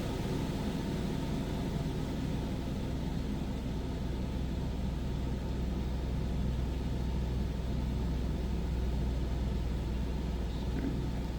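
Furrion Chill Cube 18k rooftop RV air conditioner running on low fan with its ceiling dump vent open: a steady rush of air over a low, constant hum.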